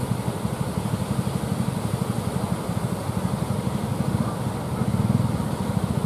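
Fishing boat engines running steadily with a fast, chugging pulse, over the rush of breaking surf. The engine sound grows a little louder about five seconds in.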